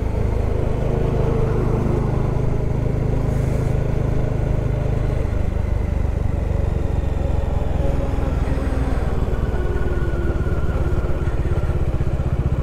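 Motorcycle engine running steadily while riding, a low, even engine hum whose note shifts about five seconds in.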